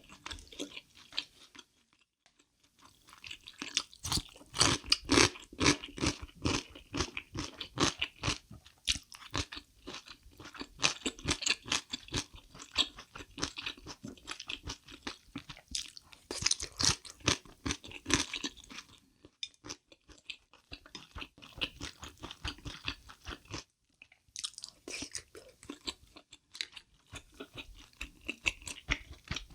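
Close-miked crunchy chewing of kimchi: rapid wet crunches, about three or four a second, with a few short pauses between mouthfuls.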